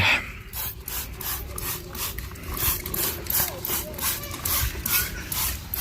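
Trigger spray bottle of Super Clean degreaser being pumped rapidly, giving a quick run of short hissing squirts, about three to four a second, onto the underside of a lawn mower deck.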